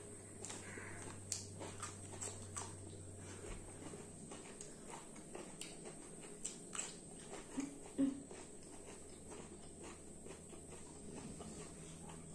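Quiet eating sounds: small lip smacks and chewing as rice and chicken curry are eaten by hand, with a brief low vocal sound about eight seconds in.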